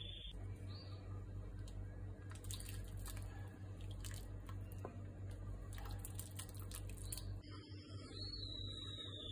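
Pot of vegetable soup stirred with a ladle: liquid sloshing and the ladle clicking against the pot for several seconds, over a steady low hum. Near the end the stirring stops and only a faint high steady tone and the hum remain.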